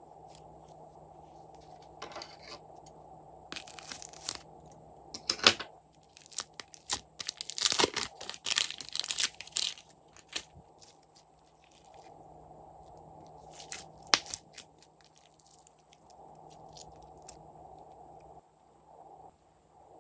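Glossy slime being worked by hand: scattered sticky clicks and crackles, thickening into a dense run of crackling near the middle, with a few sharper snaps.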